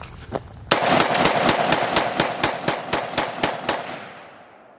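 Semi-automatic pistol fired in a rapid string of about a dozen shots, about four a second, with echo trailing off after the last shot.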